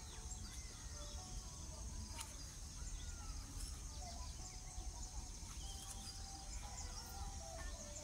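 Birds in the trees chirping and whistling: many short calls that rise and fall in pitch, over a steady high-pitched insect drone and a low rumble, with a few sharp clicks.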